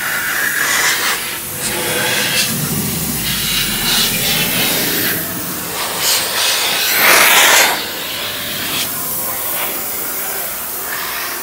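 Compressed air from a shop air hose hissing along the edge of a closed Cessna 177 Cardinal cabin door, blown there to test the newly glued door seals for leaks. The hiss swells and fades as the nozzle moves, loudest about seven seconds in.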